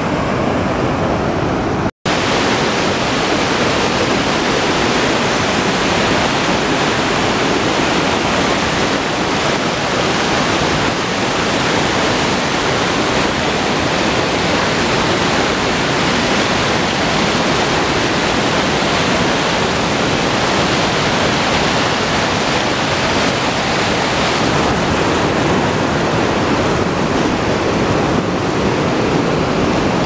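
Ahvenkoski waterfall on the Tohmajoki river: a loud, steady rush of white water pouring over rock rapids, broken by a momentary cut about two seconds in.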